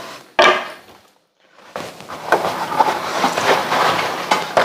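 Kitchen work noises: a sharp knock about half a second in, then after a short lull a continuous rustling with many small clicks and clatters.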